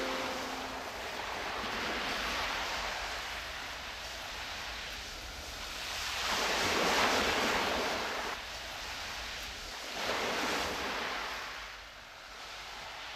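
Ocean surf: a steady hiss of waves that swells and ebbs, with about three surges washing in and drawing back.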